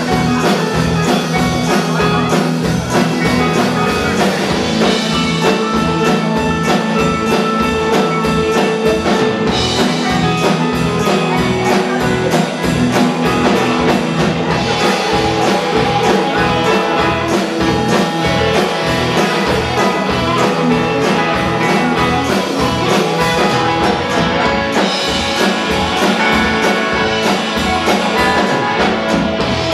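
Live country band playing: electric guitar, bass guitar, keyboard and drums, with a steady drum beat.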